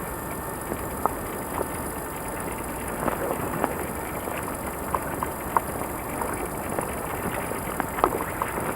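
Footsteps crunching on the forest floor: irregular crackles and snaps of leaves and twigs, heavier about three seconds in and again near the end. Under them runs the steady hiss of a JVC VHS-C camcorder's built-in microphone and tape.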